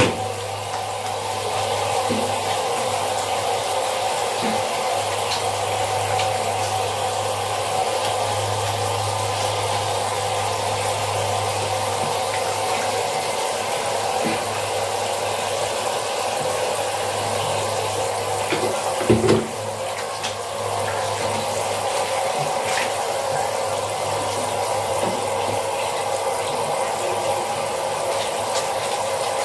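Steady running water with a constant low hum underneath, and a brief knock about nineteen seconds in.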